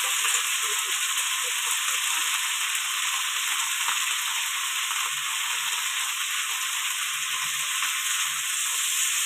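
Pumpkin leaves frying in hot oil in a wok, with potatoes and jackfruit seeds beneath them: a steady sizzle.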